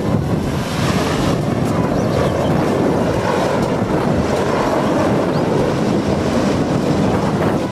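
Mil Mi-26 heavy transport helicopter hovering and flying low: a loud, steady rush of rotor and turbine noise, with wind buffeting the microphone. It cuts off abruptly at the end.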